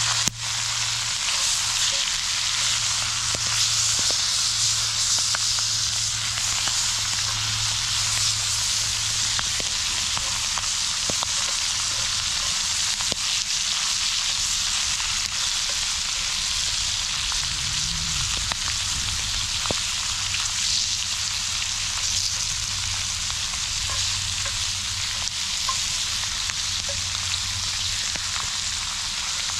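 Pheasant pieces and sliced potatoes frying in a cast-iron skillet over a campfire: a steady sizzle with scattered small pops.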